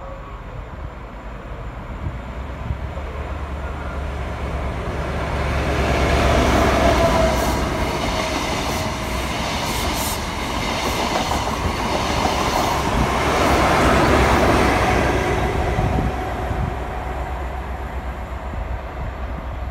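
InterCity 125 high-speed train, a diesel set with Class 43 power cars, passing on the platform line with wheels clattering over the rails. The rumble builds, swells to a peak about seven seconds in and again about fourteen seconds in, then fades as the train moves away.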